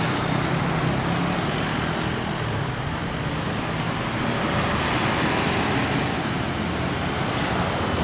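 A Mercedes-Benz OH 1526 coach bus driving past close by. Its engine and tyre noise swell as it goes by, about halfway through, then ease off as it pulls away, with other road traffic mixed in.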